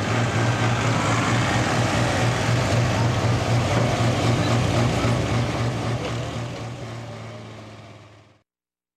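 International super stock pulling tractor's diesel engine running loud at a steady speed after its pull, dying away over the last few seconds and then cutting off.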